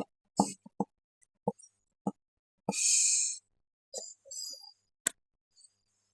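Engine parts and hand tools being handled during teardown: a string of sharp clicks and knocks, with a short rushing noise about three seconds in and a softer one near the end.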